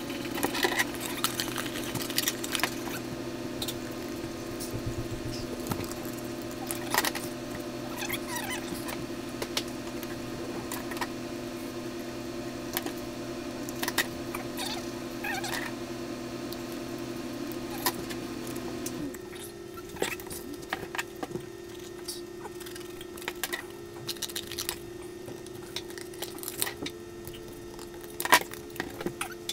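Scattered clicks, taps and rustles of cardboard and craft tools being handled, over a steady low hum that shifts in pitch about two-thirds of the way through.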